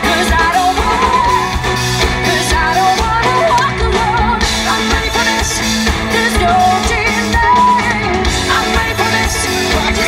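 Amplified pop-rock music from a live stage band, with a lead singer's wavering melody over electric guitar, drums and a steady beat.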